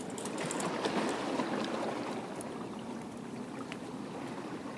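Small sea waves washing and lapping against the rocks of a stone breakwater, a steady rushing that swells slightly about a second in.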